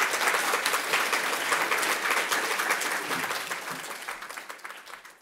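Audience applauding, the clapping thinning out and fading away over the last couple of seconds.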